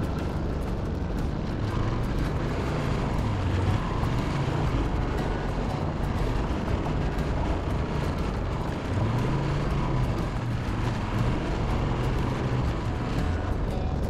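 Moto Guzzi Griso 1200 Sport's V-twin engine running under way, its pitch rising and falling with the throttle, over a steady rush of wind and tyre noise on gravel.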